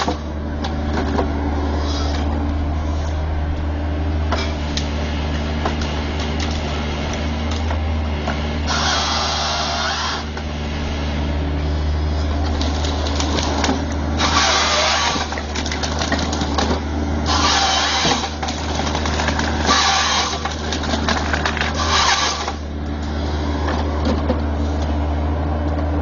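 Diesel engine and hydraulics of a tracked excavator with a harvester head running steadily. About five harsh, noisy bursts of one to two seconds each come from the head sawing and feeding the tree stems through it.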